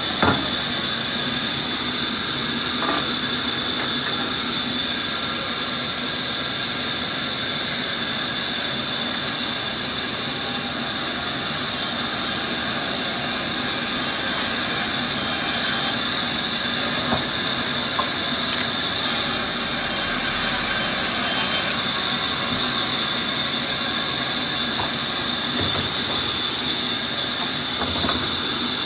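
Band saw running steadily, its blade giving a high hiss and whine as it rips a plank lengthwise, with a few light knocks of wood being handled.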